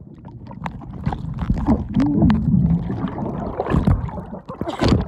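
Pool water sloshing and gurgling right at a phone's microphone as it is dunked at the surface, with many sharp splashes and knocks.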